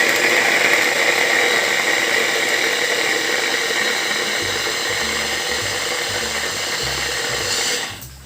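Small electric blender running steadily as it blends carrot chunks with a little water, then switched off near the end.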